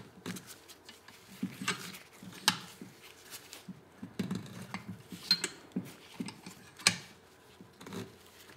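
Irregular metal clicks and knocks from a bench vise being cranked, its screw squeezing two sockets to press the old rubber bushing out of a sway bar end link.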